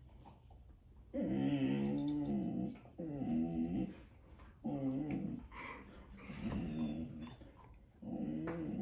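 A dog growling low, in about five drawn-out growls of about a second each, the first the loudest.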